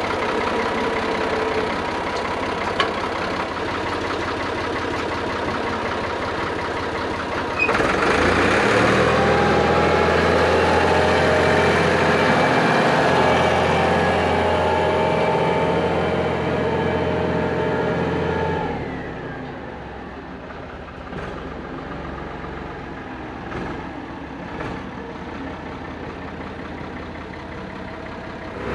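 Farm tractor engine running at low revs, then throttled up about eight seconds in and running steadily and louder for about ten seconds while moving farm equipment. Near nineteen seconds the throttle comes back and the sound drops much quieter, with a few light knocks.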